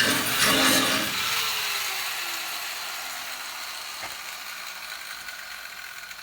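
Angle grinder cutting into car body steel for about a second, then released and coasting down, its whine falling slowly in pitch and fading over several seconds.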